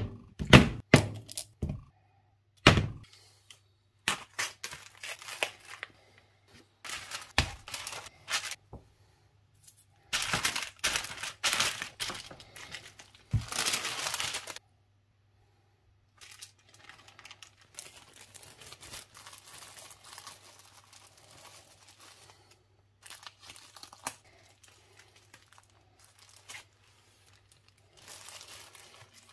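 A few sharp knocks on a cutting board in the first three seconds, then duct tape tearing and plastic sandwich bags crinkling in bursts. The bag handling grows quieter and more scattered in the second half.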